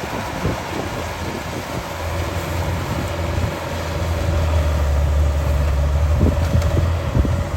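Rice combine harvester running, a steady low engine hum that swells about halfway through, with scattered knocks.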